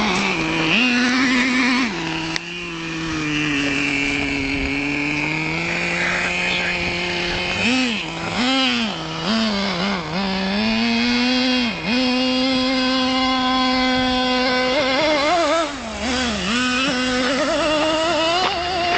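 Nitro engine of a Traxxas T-Maxx RC monster truck running at high revs. It holds a steady pitch for stretches, dips and rises as the throttle is worked over the dirt mounds, and climbs near the end.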